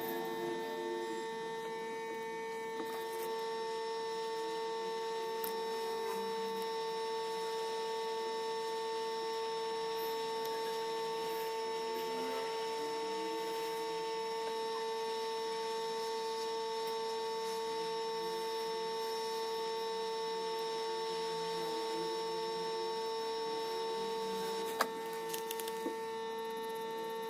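A steady electronic hum at one fixed pitch with overtones, unchanging throughout, with a single sharp click near the end.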